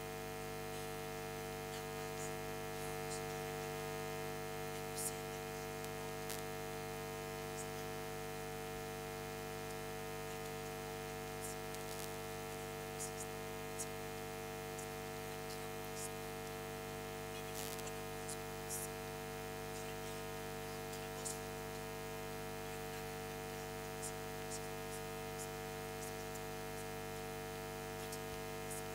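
Steady electrical hum made up of many constant tones, with scattered faint clicks and crackles throughout.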